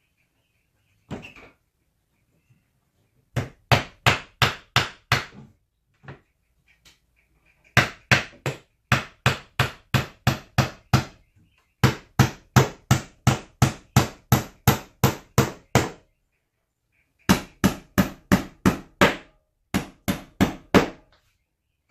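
Hand hammer driving nails into wooden trim board overhead: sharp, evenly paced blows about three a second, in five runs with short pauses between them.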